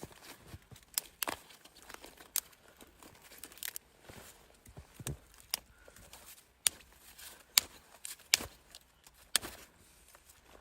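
About ten sharp, irregular snaps and cracks, spaced unevenly, each brief, over a faint crackling background.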